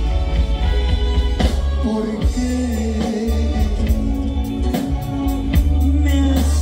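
Live band music over a PA, with electric guitar, bass guitar, drums and keyboard playing a romantic ballad. A heavy bass line sits under a held melody note that starts about two seconds in.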